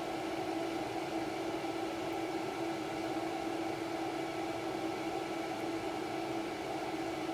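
Small electric motor running with a steady hum and a strong low tone over a constant hiss.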